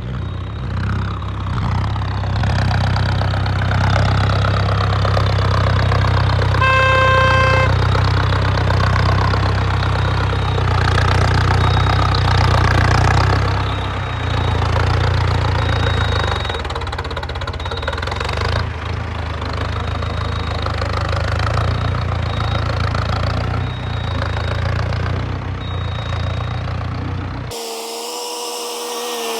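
Diesel tractor engine running steadily with a heavy low rumble, with a brief pitched tone about seven seconds in. The sound changes abruptly near the end.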